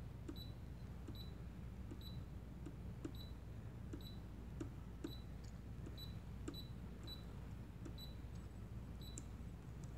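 Brother PE770 embroidery machine's control-panel keys giving short high beeps as they are pressed over and over, about two a second, with soft fingertip taps on the panel.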